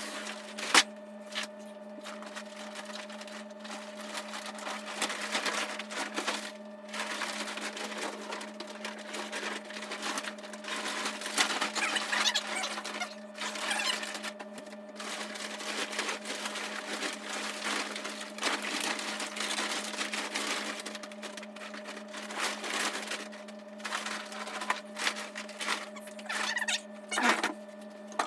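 Heavy tent canvas and its plastic wrapping being unrolled and handled, a continuous uneven rustling and crinkling with a few sharp crackles, over a steady low hum.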